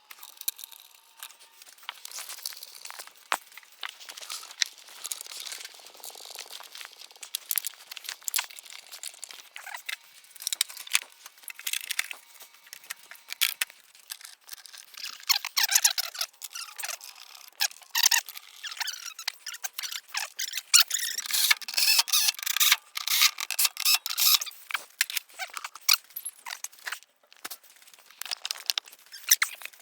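Plastic trim and push clips being worked into place by hand: irregular squeaks and scrapes of plastic rubbing on plastic, broken by sharp clicks, busier in the second half.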